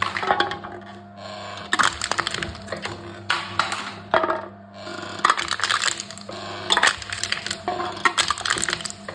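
Aluminium cans being crushed by a machine: bursts of crackling, crumpling metal come again and again, about every one and a half to two seconds, over a steady low hum.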